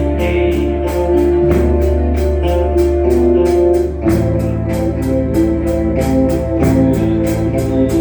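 Live amateur band playing an instrumental passage: electric organ chords held over a steady bass line and a regular drum and cymbal beat, with a chord change about four seconds in.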